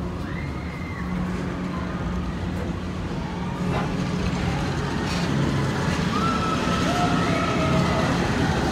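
Walt Disney World PeopleMover ride car running along its track: a steady low hum over a continuous rolling noise, growing a little louder toward the end, with a few faint higher tones in the background.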